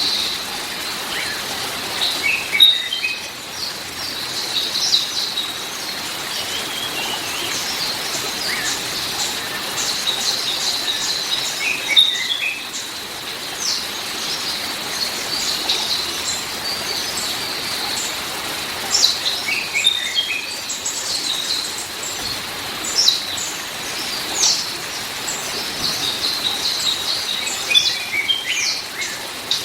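Many small songbirds chirping and singing over a steady watery hiss like rain. A short falling run of notes comes back every eight to ten seconds among the high chirps.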